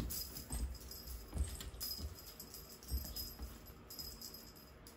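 An F2 Savannah kitten jumping and landing on a bedspread, making a few soft thumps, with light jingling and rustling from the feather teaser toy being shaken.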